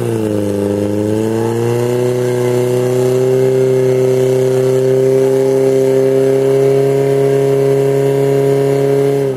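Portable fire pump's engine held at high revs, pumping water out into the hose lines. It is a steady, loud drone whose pitch rises a little in the first couple of seconds and dips right at the end.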